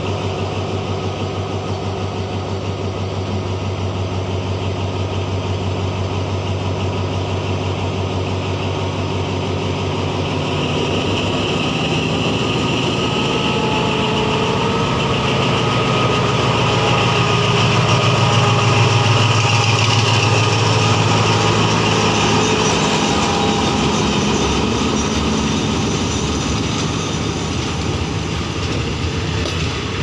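Diesel engine of an Alsthom ALD diesel-electric locomotive (Pielstick engine) running with a steady low drone that grows louder to a peak just past halfway as the train draws close and passes, then passenger coaches rolling by on the rails near the end.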